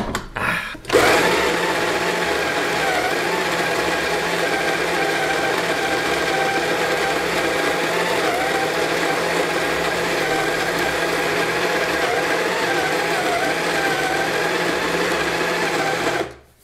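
Sage (Breville) Smart Grinder Pro's conical-burr grinder grinding coffee beans fine for an espresso shot into a portafilter. The motor runs steadily with a slightly wavering whine for its timed dose of about 15 seconds, starting about a second in after a short clatter and cutting off just before the end.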